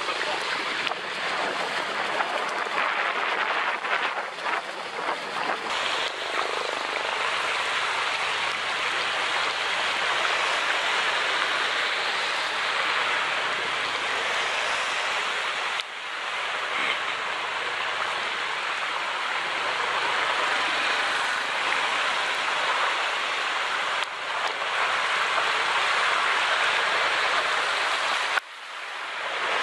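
A Honda scooter riding through rain and floodwater: a steady rushing of wind, rain and water spray, briefly dropping away near the end.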